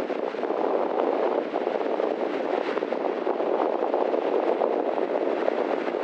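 Steady rush of small Black Sea waves breaking on a sandy beach.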